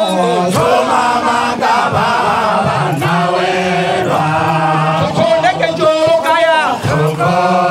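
A man singing a traditional Sukuma song into a microphone in a chanting style, in short phrases with brief breaks between them.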